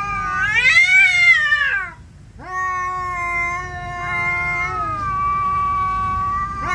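A Siamese cat and an orange-and-white cat yowling at each other in a territorial standoff. One long wavering yowl rises and falls in pitch, breaks off about two seconds in, and is followed by a long, steadier yowl that runs on.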